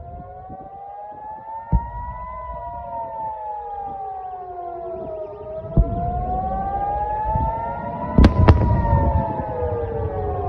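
Civil-defence warning siren wailing, its pitch rising and falling slowly in cycles of about six seconds, sounding the alert for incoming rockets. Sharp bangs cut through it about two seconds in, near six seconds, and twice close together past eight seconds, over a low rumble that grows louder.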